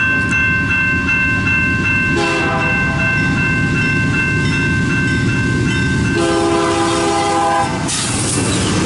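Two-locomotive CN freight train's air horn sounding a short blast about two seconds in and a longer one about six seconds in, over the steady ringing of the grade-crossing bells and the low rumble of the approaching diesel locomotives. Near the end the noise of the train passing swells up.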